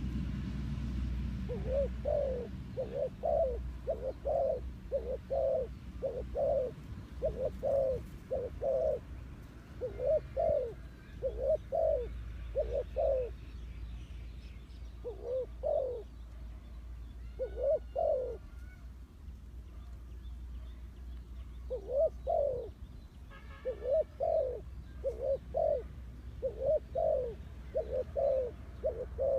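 Spotted dove cooing: runs of repeated low coo notes with short pauses between runs. Faint chirps of other small birds come in here and there.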